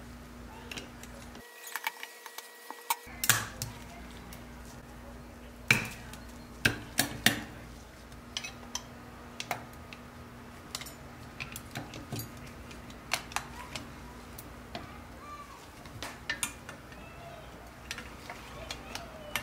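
Pressed-steel toy truck parts clinking and tapping against each other as they are fitted together by hand: scattered small metal clicks and knocks, a few sharper ones in the first half.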